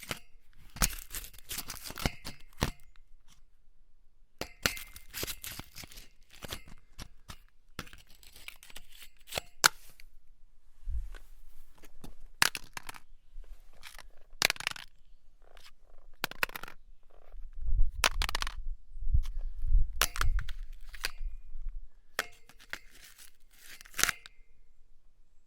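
An object being grated and scraped against metal in a series of rough, irregular strokes, with sharp metallic clicks and clinks among them and a few heavier knocks about two-thirds of the way through.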